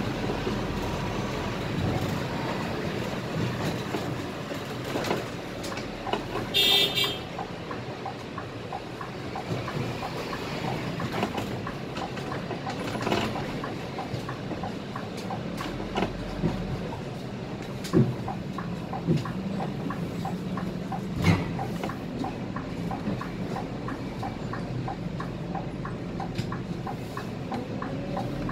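Cab noise of a Scania K320IA articulated bus on the move: steady engine and road noise with rattles and a few sharp knocks. A short horn toot sounds about seven seconds in.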